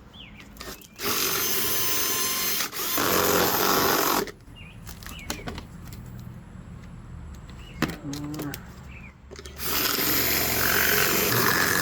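Power drill running in two bursts of about three seconds each, the second starting near the end; the first steps up in loudness partway through.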